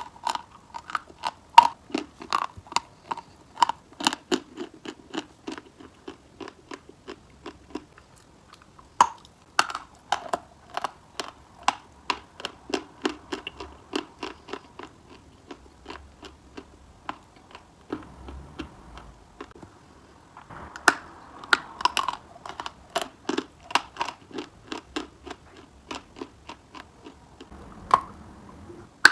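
Close-up crunching and chewing of a block of chalk: sharp, crackly crunches several times a second as pieces are bitten off and ground between the teeth, pausing briefly twice.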